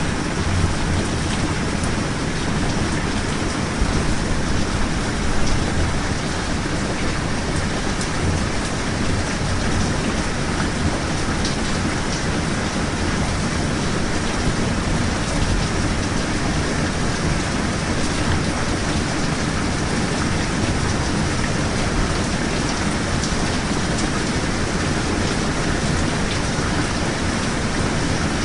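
Steady, even rain noise, with a deep low rumble under it and slight swells about four to six seconds in.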